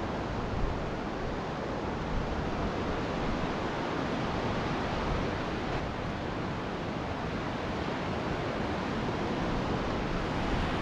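Steady rush of white water from tidal rapids churning under a bridge, with wind buffeting the microphone.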